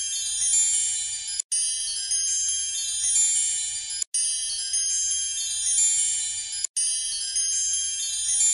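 Twinkling wind-chime-like music with many high shimmering tones, repeating as a short loop that cuts out for an instant about every two and a half seconds, three times.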